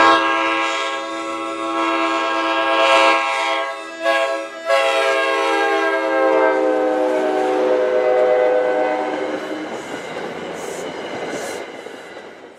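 Train air horn sounding a chord: a long blast, a brief break about four seconds in, then a second blast whose pitch falls as the train passes, fading out near the end under the noise of the passing train.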